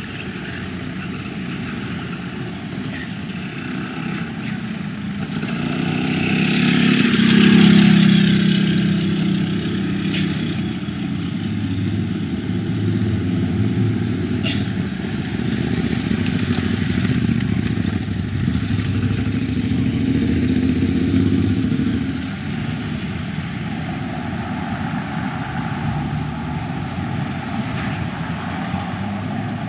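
Street traffic: a motor vehicle's engine rises to its loudest about seven or eight seconds in as it passes close, and engine noise goes on until it drops away about 22 seconds in.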